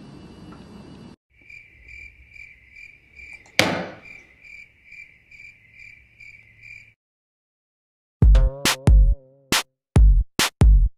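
Crickets chirping in an even pulse, about three chirps a second, broken about three and a half seconds in by a single sharp loud bang, a gunshot. After a short silence, music with heavy drum-machine beats starts near the end.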